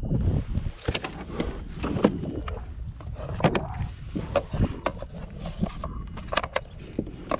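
Irregular knocks and clatters on a kayak as gear and a fresh catch are handled aboard, over a steady low rumble.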